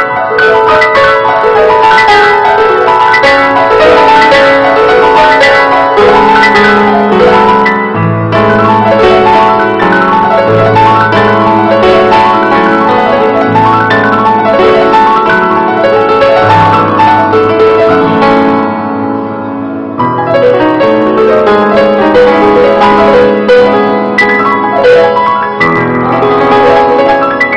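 A grand piano played solo, a flowing run of notes. Low bass notes come in after about six seconds, and the playing eases briefly about two-thirds of the way through before carrying on.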